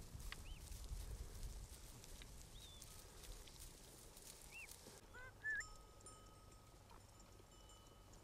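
Faint open-field ambience: a low wind rumble with a few short bird chirps, and one brief louder animal call about five and a half seconds in.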